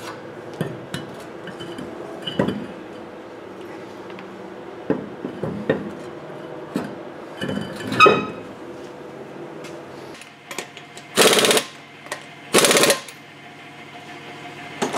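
Steel truck wheel knocking and clunking against the hub and studs as it is lifted back on, with the loudest, ringing metal knock about eight seconds in. Then two short bursts of an impact wrench running the lug nuts on.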